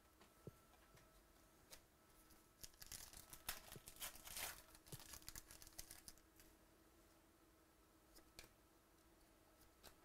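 Crinkling and tearing of a foil trading-card pack wrapper being opened, a dense crackle for about three seconds in the middle, with a few light clicks of cards being handled before and after.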